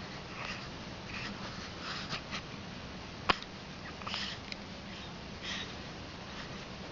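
Short sniffs through the nose, repeated every half second or so, with one sharp click about three seconds in.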